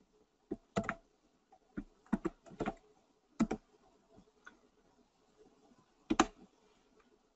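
Computer keyboard keys and mouse buttons clicking, about ten short sharp clicks: several irregular ones in the first three and a half seconds, then a single louder click a little past six seconds.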